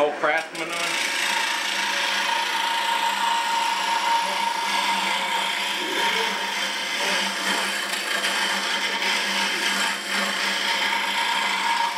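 Small hand tool cutting along a spiral on a wooden spindle held still in the lathe: a continuous scraping that raises shavings, with a steady hum beneath.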